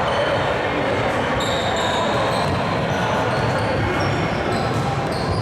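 Basketball being dribbled on a gym floor during a game, with short high squeaks from sneakers, over a steady din of room and crowd noise in a large hall.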